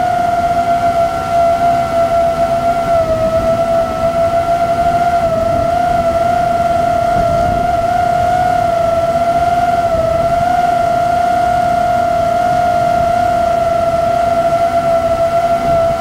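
DJI FPV drone's motors and propellers whining steadily in flight, the pitch wavering slightly as the throttle shifts.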